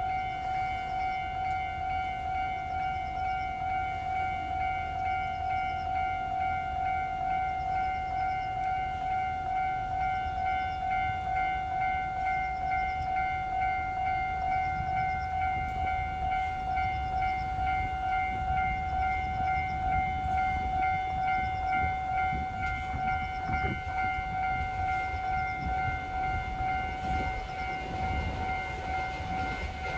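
Japanese level-crossing warning bell ringing its steady, rapidly repeating electronic clang. Under it, the low rumble of a container freight train hauled by an EH500 electric locomotive grows through the second half, with a few knocks.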